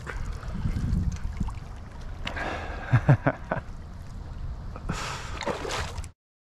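Water trickling and lapping against rocks at the water's edge over a steady low rumble, with a few short knocks and rustles about three seconds in. The sound cuts off suddenly near the end.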